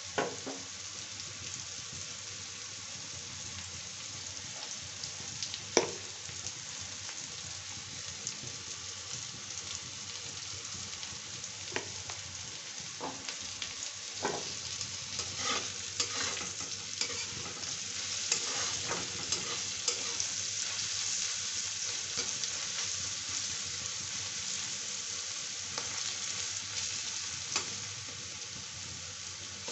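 Chopped onion and vegetables sizzling in hot oil in a kadhai, a steady hiss. A metal spatula stirs them now and then, with sharp clicks and scrapes against the pan, the loudest about six seconds in and a cluster in the middle.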